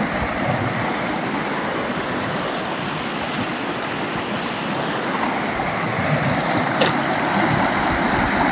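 Floodwater of a rain-swollen creek rushing steadily under a wooden plank bridge. A single short click comes about two-thirds of the way through.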